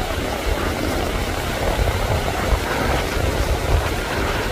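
Wind buffeting the microphone in a heavy, uneven low rumble over the steady wash of breaking surf.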